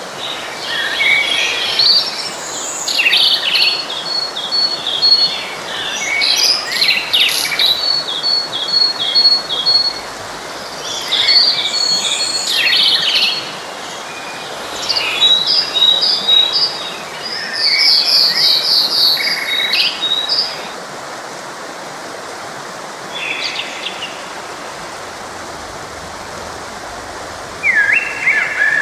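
Songbirds singing in repeated chirping and trilled phrases over the steady rush of a forest stream. The song stops about two-thirds of the way through, leaving mostly the water, then a bird starts again near the end.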